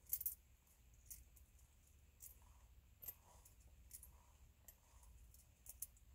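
Near silence with faint, scattered small clicks about once a second, the loudest just after the start.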